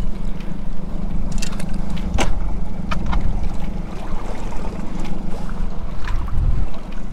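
Small fishing boat at sea: a steady low rumble with water sloshing against the hull, and a few short sharp clicks scattered through it.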